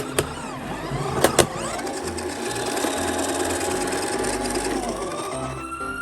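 Small motors of toy ambulances whirring and rattling, with a few sharp plastic clacks about a second in. A toy siren tone begins to rise near the end.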